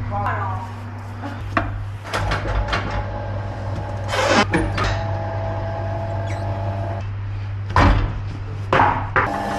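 Tyre-repair workshop work sounds: several sharp knocks and short hissing bursts over a steady low machine hum.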